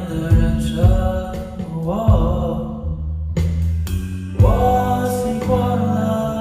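A band playing live: a voice sings long, wavering held notes over a steady bass line, with drum hits every second or so.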